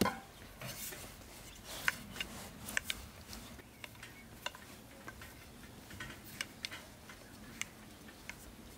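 Wooden rolling pin rolling dough on a wooden board, with irregular light clicks and knocks as the pin and board shift.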